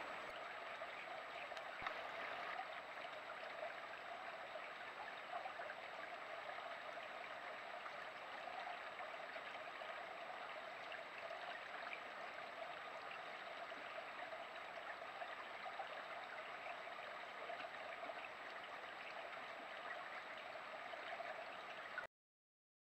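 Steady rush of running water picked up by a trail camera's microphone, with a faint high steady whine above it. It cuts off suddenly near the end.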